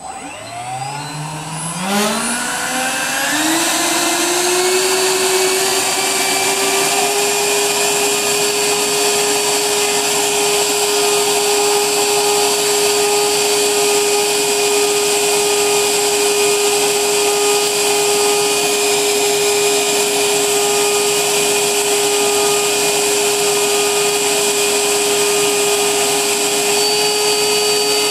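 RC model plane's electric motor run up on a 4S LiPo battery: a whine rising over the first four seconds, then held steady and loud at high throttle for the rest, the battery being worked hard in a break-in run.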